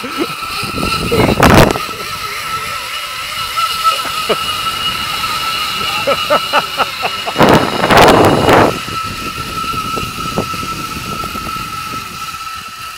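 Zip-line trolley pulleys running along a steel cable with a steady whine, over a constant rush of moving air. Two loud gusts of noise come about a second in and about eight seconds in. The sound fades near the end as the ride slows.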